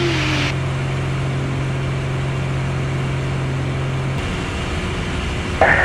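Steady drone of a Piper Arrow's engine and propeller heard inside the cabin in cruise-climb, with a steady low hum in it that drops out about four seconds in.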